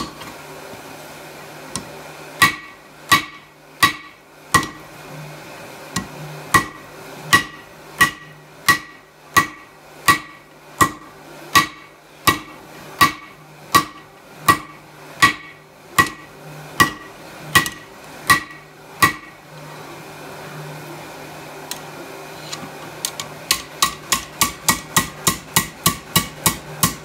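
Hand hammer striking red-hot steel on an anvil, drawing out the edge of a drawknife blade. Single blows come about one and a half a second apart, each with a brief ring, then after a pause of a few seconds a quicker run of about four lighter blows a second.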